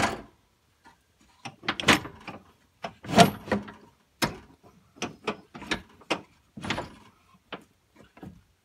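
Steel 42-inch Gilson mowing deck being shoved and jostled into place under a garden tractor: irregular metal clunks, knocks and scrapes.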